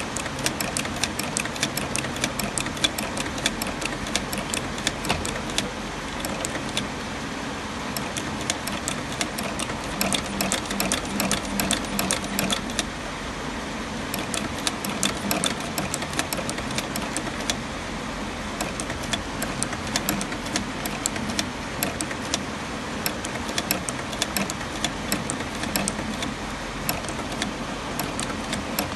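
Industrial sewing machine stitching in runs, its needle mechanism clicking rapidly and evenly, with short lulls between runs.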